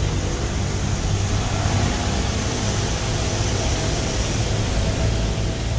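Steady roadside traffic noise: a continuous rumble and hiss from passing vehicles, with no single event standing out.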